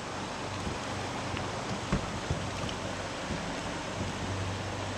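Steady rush of shallow river water flowing over a riffle, with a few faint knocks about two seconds in.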